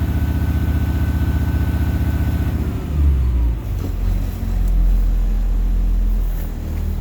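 Blue Bird bus engine held at a raised, steady RPM on high idle; about two and a half seconds in the revs fall away and it settles to a lower steady idle.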